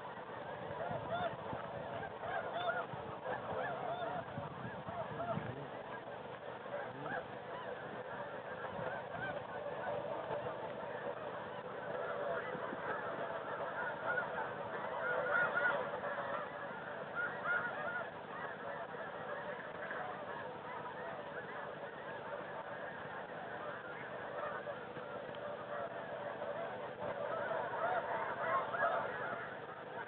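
A large flock of snow geese calling, a continuous chorus of many overlapping short, high honks that swells around the middle and again near the end.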